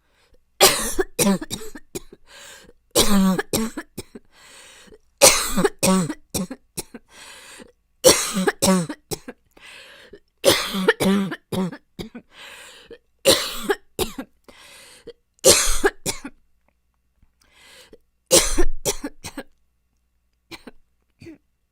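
A young woman coughing in repeated fits: a bout of several coughs every two to three seconds, easing off in the last few seconds. She describes the cough as getting steadily worse and her throat as badly damaged by it.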